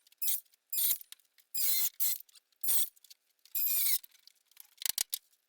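A run of short scraping and rattling handling sounds, about seven bursts each under half a second, with quiet gaps between them. No saw motor runs.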